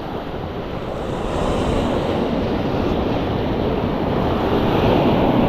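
Sea surf washing and breaking, with wind buffeting the microphone. The wash builds about a second in and swells again near the end.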